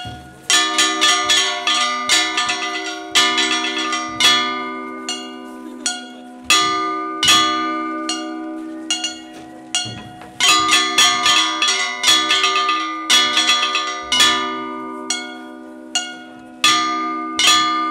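Large hand-held brass cymbals clashed over and over, some clashes in quick runs, each leaving a long metallic ring that slowly dies away. Hand-drum beats sound underneath.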